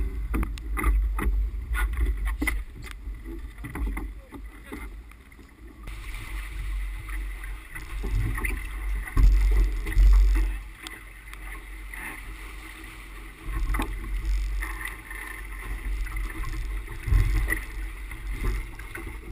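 Wind buffeting the deck-mounted camera's microphone in gusts, over water rushing past a sailboat's hull. In the first few seconds, spray spatters against the camera in sharp taps; the sound changes about six seconds in, where the rush of water gets steadier.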